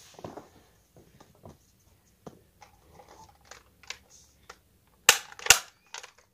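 Handling of a plastic Nerf Fortnite Hammer Action SR blaster: faint clicks and rattles, then two loud, sharp plastic snaps about half a second apart near the end.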